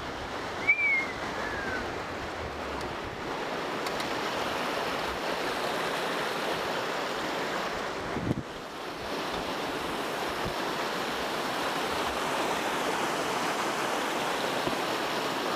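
Steady rushing of wind on the microphone and tyres rolling on dirt as a mountain bike descends a trail, growing slightly louder. A short squeak falls in pitch about a second in, and a single knock comes about eight seconds in.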